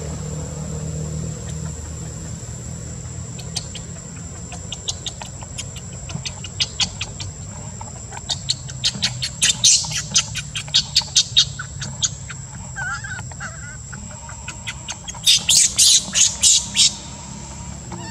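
Rapid runs of short, sharp, high-pitched chirps, about three or four a second, louder in two spells, the first about halfway through and the second near the end, over a steady high whine.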